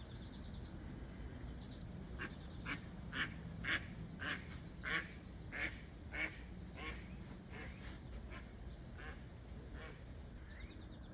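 A duck quacking in a series of about a dozen short quacks, roughly two a second, louder in the middle and fading toward the end.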